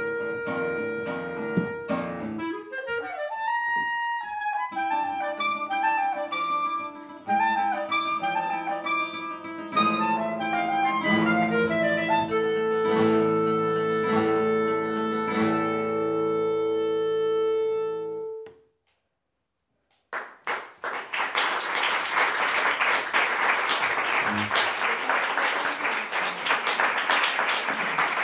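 Clarinet and classical guitar playing a busy passage of quickly changing notes, ending on a long held note about 18 seconds in. After a brief silence, audience applause fills the last several seconds.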